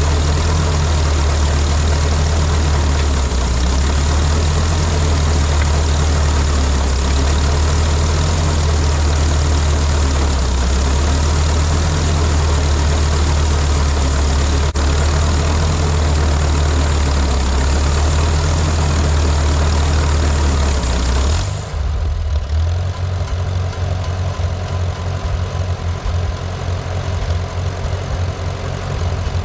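Farmall B's four-cylinder engine running steadily under load, driving the Artsway 420 grinder mixer to stir ground ear corn. About 21 seconds in the sound changes abruptly: the higher noise drops away and the engine falls to an uneven, pulsing idle.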